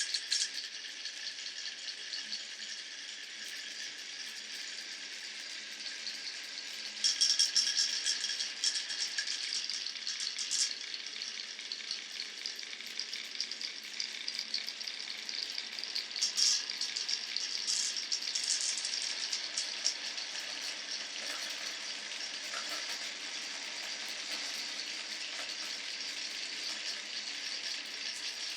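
Glass marbles rolling and clattering along a wooden marble run. There is a steady rolling rattle, with two louder bursts of clacking about seven and sixteen seconds in.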